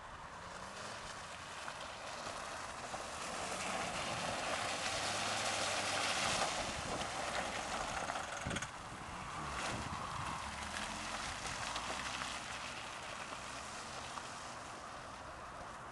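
First-generation Toyota RAV4 engine revving up and down as the car slides sideways through mud, with tyre and mud noise. It grows louder as the car comes close about six seconds in, then fades as it drives away.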